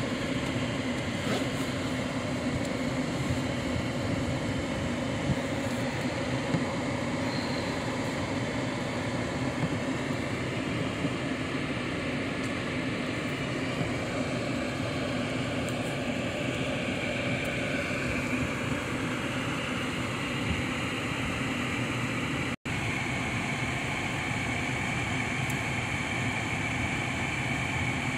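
Steady car running noise heard from inside the cabin as the car rolls slowly along: engine and tyre noise with a low, even hum. It cuts out for an instant about 23 seconds in.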